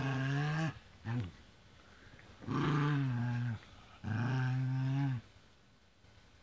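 Dog growling in play during a tug-of-war over a rope toy: a growl that breaks off early, a short one about a second in, then two long, steady growls of about a second each.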